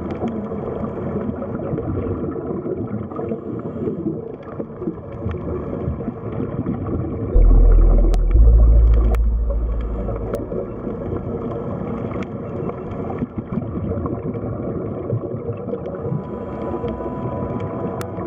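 Underwater ambience: a steady churning, bubbling wash of water with a few faint held tones and occasional light clicks. A deep low rumble comes in suddenly about seven seconds in, swells, and fades away over the next three seconds.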